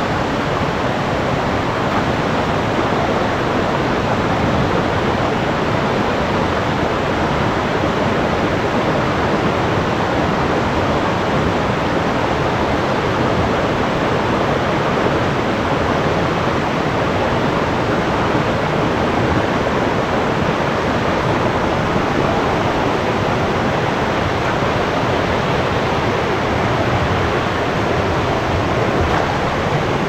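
Rushing water of a river waterfall and rapids: a loud, steady, unbroken roar.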